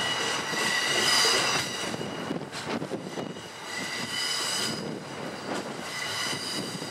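Wheels of E26 Cassiopeia passenger cars squealing as they roll through curved track: high-pitched squeals over the rumble of the wheels. The squeal is loudest about a second in, and comes back around four seconds in and again near the end.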